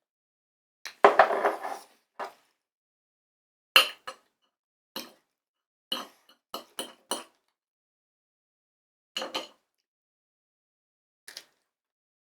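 Fork and knife clinking and scraping against a plate in short, scattered clatters, the longest and loudest about a second in.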